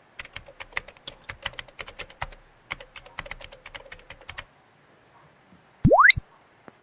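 Rapid typing on a computer keyboard, a quick run of key clicks for about four seconds. About six seconds in comes a short, loud electronic tone that sweeps steeply up in pitch, a rising-whistle sound effect.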